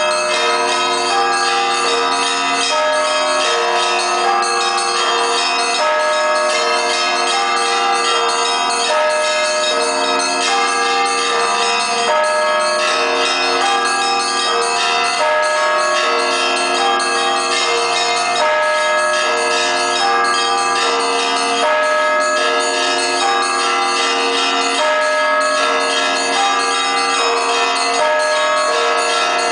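Orthodox church bells being rung together, many bells of different pitches struck in a continuous rhythmic peal, their tones ringing on and overlapping.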